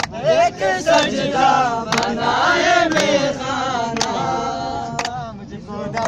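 Voices singing a Balti ghazal, the melody wavering and ornamented, over a beat of sharp strikes about once a second.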